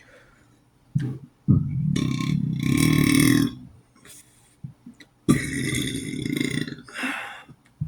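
A man burping twice, two long drawn-out burps, the first about a second and a half in and the second starting about halfway through. He puts this run of burping down to the garlic on the cheese bread he has been eating.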